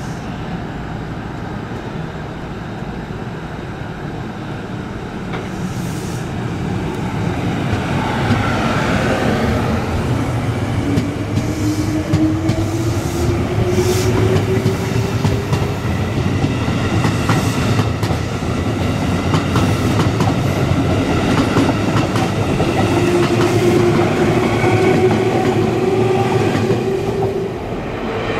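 JR Kyushu 787 series eight-car electric train pulling out of a station and picking up speed. Its traction motor whine rises in pitch twice, over wheel rumble and clacking over rail joints.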